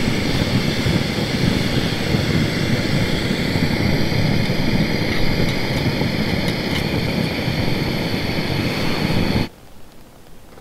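Jetboil Zip canister stove's gas burner running with a steady, loud hiss. It cuts off suddenly near the end.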